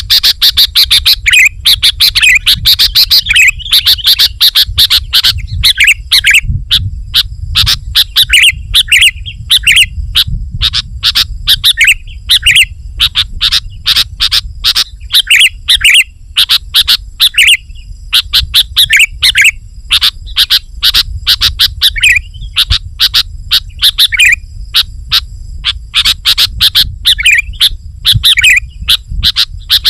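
Sooty-headed bulbul (kutilang) calling rapidly and persistently: a dense run of sharp chirps and short whistled phrases with hardly a pause, over a low rumble.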